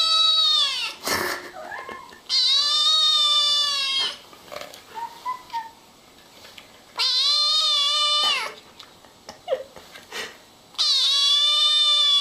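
A kitten meowing: long, drawn-out, high meows about every four seconds, each holding its pitch and dropping at the end.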